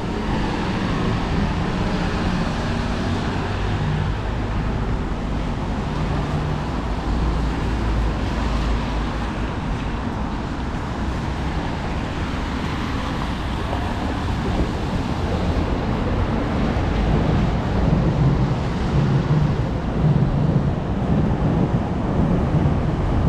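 Steady traffic noise on a wet city street in the rain: a continuous hiss with a low rumble, growing a little louder in the second half.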